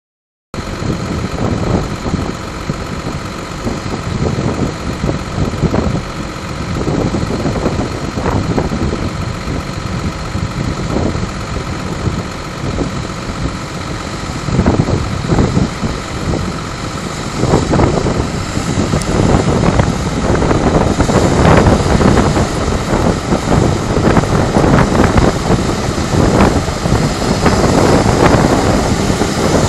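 Self-propelled forage harvester picking up and chopping grass for silage and blowing it into a tractor-drawn trailer running alongside: a steady, dense machinery drone with a thin high whine over it. It grows louder about two-thirds of the way in.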